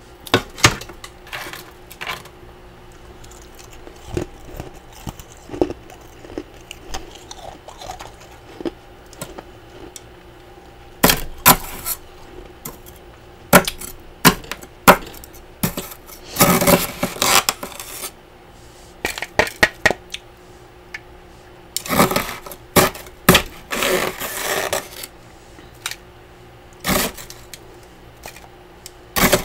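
A metal spatula scraping and chipping built-up frost off the inside walls of a small freezer: scattered sharp scrapes and clicks, with two longer stretches of steady scraping in the second half.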